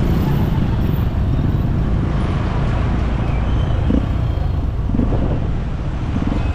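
Steady low rumble of a vehicle travelling in road traffic.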